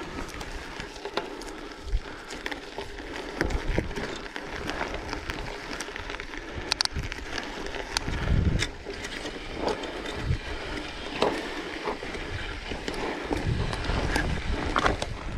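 Bicycle being ridden over a rough dirt track: steady rolling noise with frequent clicks and rattles, and wind buffeting the microphone in low gusts, strongest about three and a half and eight seconds in.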